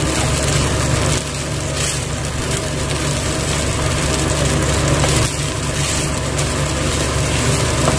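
Wooden spatula stirring and scraping toasted vermicelli around a non-stick frying pan, with the dry strands rustling and crackling, over a steady low hum.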